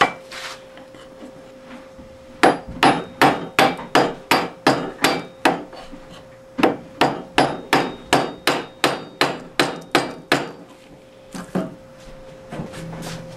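Wooden mallet lightly tapping the end of an Atlas 618 lathe spindle, driving it through the headstock to knock the bull gear loose. The taps come quickly and evenly, about four a second, in two runs of a dozen or so with a short pause between, and a couple of last taps near the end.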